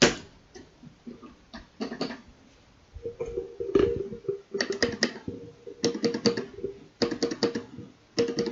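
Sound test on a GK61 mechanical keyboard in a wooden case, fitted with lubed Gateron Yellow linear switches. A few scattered keystrokes, then fast runs of key presses from about three seconds in.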